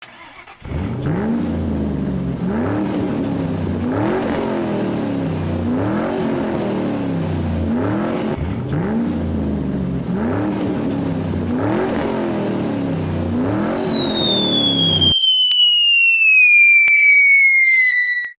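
Vehicle engine revving again and again, its pitch climbing about every second and a half. It cuts off suddenly and gives way to a long whistle falling steadily in pitch.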